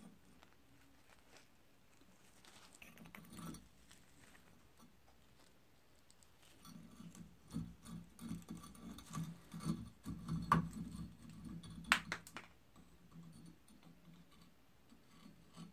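Rusty parts of an antique cast-iron meat grinder being worked loose with pliers and pulled apart: metal scraping and rattling on metal from about six seconds in, with two sharp metallic clinks.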